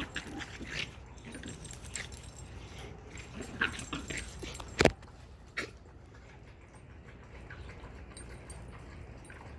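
Dogs playing and tussling with each other: short dog noises and scuffling, with two sharp knocks about five seconds in, after which it goes quieter.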